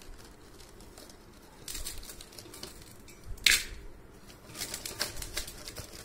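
Lumps of jaggery handled in a plastic bowl and dropped into a steel pot: scattered light clicks and rustles, with one sharp clack about three and a half seconds in.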